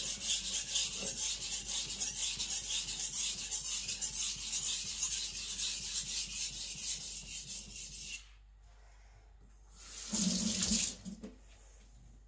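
Aogami steel gyuto blade stroked rapidly back and forth on a wet whetstone, a steady scratchy rasping that stops abruptly about eight seconds in, during thinning while raising a burr. About two seconds later there is a short burst of noise, then quiet.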